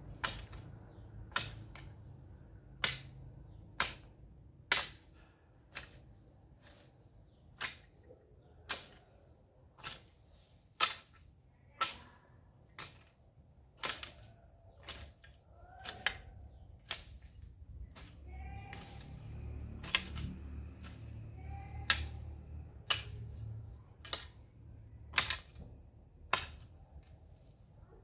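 Long-handled garden hoe chopping into weedy ground: a sharp strike about once a second, evenly paced.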